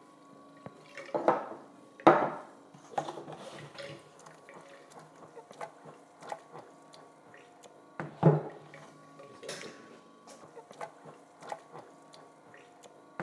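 Knocks and clatter of a plastic Igloo cooler mash tun being handled while crushed malt is mixed into its hot water, with the loudest bumps about two seconds and eight seconds in.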